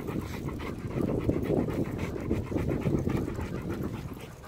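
German Shepherd panting rhythmically while running beside a bicycle.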